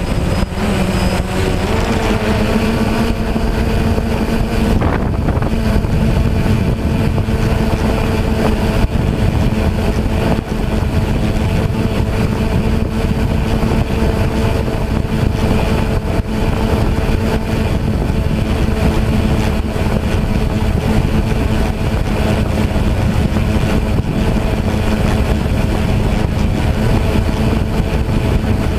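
DJI Phantom quadcopter's electric motors and propellers whining at a steady pitch, rising slightly over the first couple of seconds and then holding, with heavy wind buffeting on the microphone in high winds.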